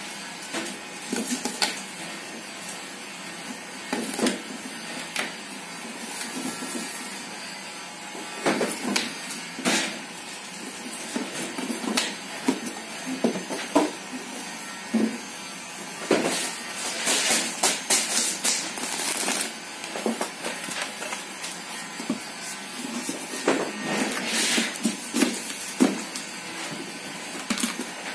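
Paperboard gift-box parts being handled and fitted together on a metal worktop: irregular knocks and taps of cardboard set down and pressed into place, with several longer scraping, rustling sweeps of board sliding. A steady background noise runs underneath.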